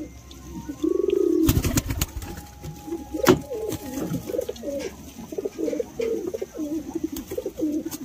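Domestic pigeons cooing over and over in low, swooping calls, with a few sharp knocks.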